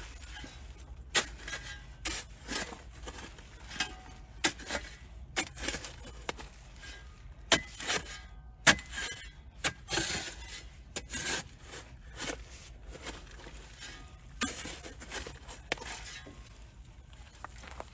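Hand digging and handling soil while transplanting corn seedlings: irregular scrapes, rustles and sharp knocks, with several loud knocks around the middle.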